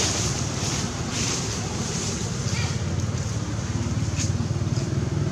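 Road traffic passing: a pickup truck and then a motorbike driving by, their engines making a steady low hum that grows louder toward the end.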